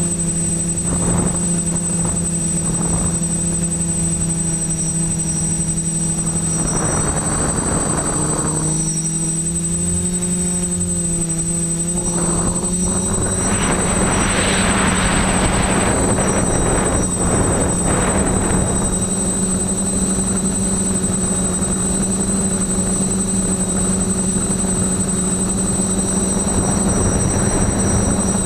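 TBS Discovery quadcopter's electric motors and propellers whining steadily, heard from the camera on board, the pitch shifting a little with the throttle. Rushing surges of air and prop noise come in around eight seconds in and again from about thirteen to eighteen seconds.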